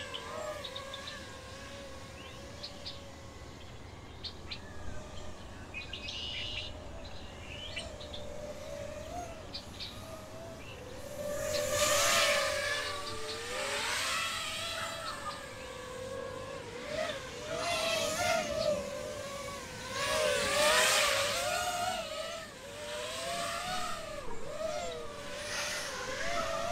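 6S FPV racing quadcopter's motors and propellers whining in flight, the pitch rising and falling with throttle. It swells into several louder throttle surges in the second half.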